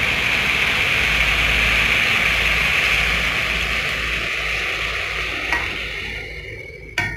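Hot water poured into a hot pot of curry masala, the masala sizzling hard, the sizzle dying away over the last couple of seconds. A sharp clink near the end.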